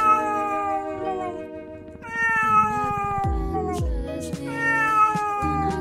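A domestic cat giving three long, drawn-out meows, each falling slowly in pitch, with short pauses between them.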